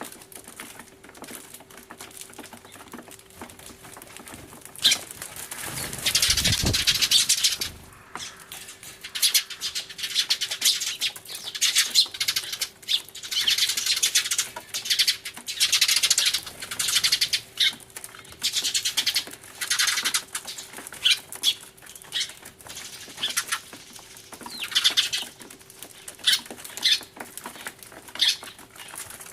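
A flock of Eurasian tree sparrows chirping loudly in repeated bursts of frantic chatter, with a low rumble about six seconds in.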